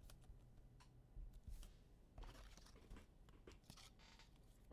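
Faint rustling and light clicks of trading cards and foil packs being handled on a table, over a low steady hum.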